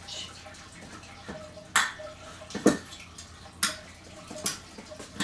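Metal muffin tin clanking and rattling as a dog noses tennis balls out of its cups, with about four sharp clanks.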